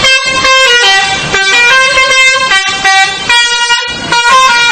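Indonesian 'telolet' musical bus horn playing a loud tune, its notes stepping up and down in pitch, some short and some held.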